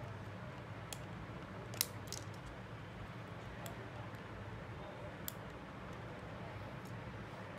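A few small, sharp clicks and taps of hand tools on a Samsung Galaxy S8+ during a charging port replacement, the loudest a little under two seconds in, over a steady low hum.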